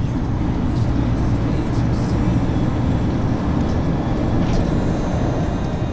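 Steady, loud, low rumbling noise of wind buffeting the microphone of a camera carried outdoors.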